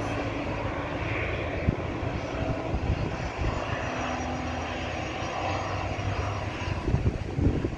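Embraer Praetor 600 business jet's Honeywell HTF7500E turbofans running at low power as it taxis, heard from afar as a steady engine noise. Wind gusts buffet the microphone near the end.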